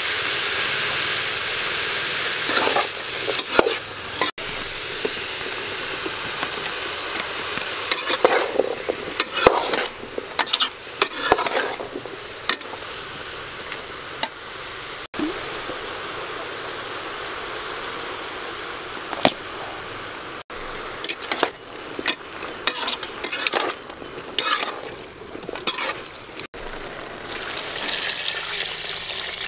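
Vegetables sizzling as they are stir-fried in an aluminium pot, with a metal ladle scraping and knocking against the pot side throughout. Near the end, water is poured in over the vegetables.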